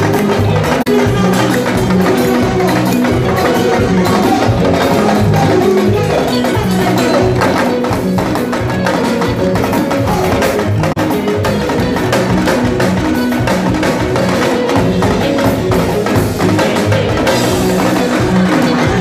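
Live mbalax band music with prominent, busy drum percussion.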